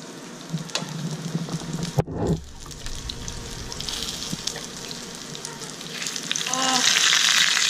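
Breaded white perch fillets frying in shallow oil in a pan, a steady sizzle that grows louder about six seconds in, after a fillet is turned over with metal tongs. A single sharp click comes about two seconds in.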